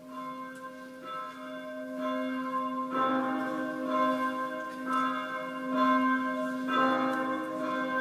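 Church bell tolling, struck again and again roughly once a second. Each strike rings on over a steady low hum.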